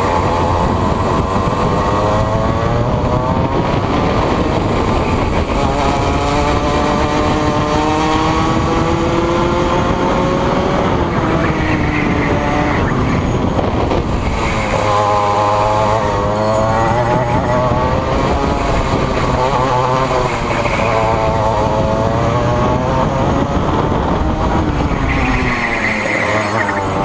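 Rotax Max 125 cc two-stroke kart engine at race pace, heard onboard, its pitch climbing on the straights and dropping into the corners several times.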